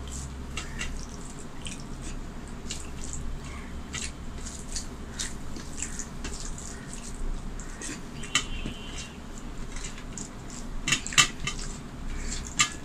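Bare fingers mixing and gathering wet rice and curry on a stainless steel plate: soft squishing with scattered light clicks and taps of fingers against the metal, a few sharper clicks near the end. A steady low hum runs underneath.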